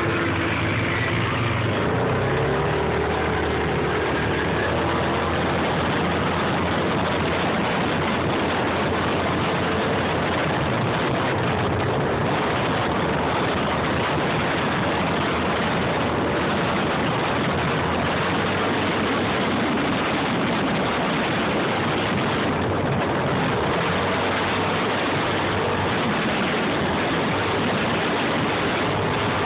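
Off-road vehicle driving along a dirt trail: its engine runs steadily beneath a continuous rush of wind and road noise on the microphone. The engine's tone is clearest in the first few seconds, before the rush covers it.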